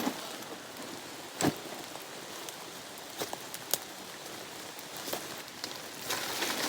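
Rain falling steadily on the forest, an even hiss, with a few sharp close taps of drops, the loudest about a second and a half in.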